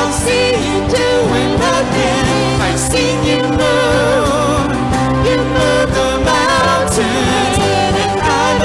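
Contemporary worship band playing a song: sung vocals over electric keyboard and electric guitar.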